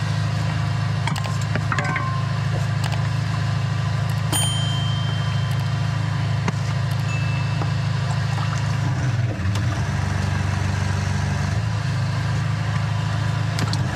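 An engine running steadily, with faint clicks and knocks over it; its note dips and shifts slightly about nine and a half seconds in.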